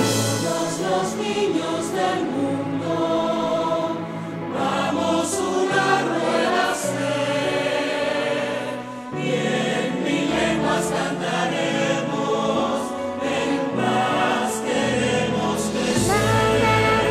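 Live song performance: a choir singing over instrumental accompaniment with a moving bass line.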